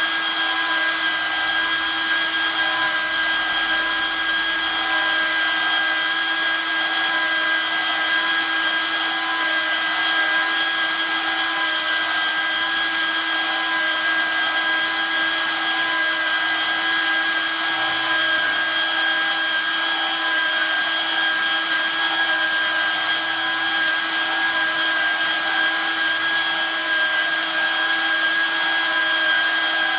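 Nodha pipe cutting and beveling machine running steadily, its motor giving an even, unchanging whine.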